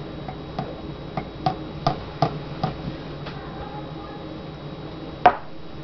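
Light taps and clicks, about two a second and unevenly spaced, as a chocolate-powder canister is knocked against the rim of a glass cup to shake powder in. One louder knock about five seconds in.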